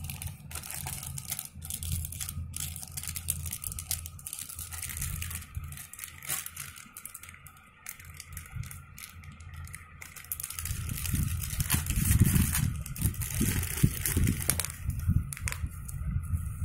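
Packaging being crinkled and torn open by hand during an unboxing, with many small clicks and rustles. A louder low rumble of handling noise comes in about two-thirds of the way through.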